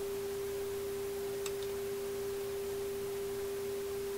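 A steady, unwavering test tone from the Marconi 201A tube radio's speaker: the signal generator's modulation tone coming through the set, tuned to its IF frequency, played at low volume during alignment.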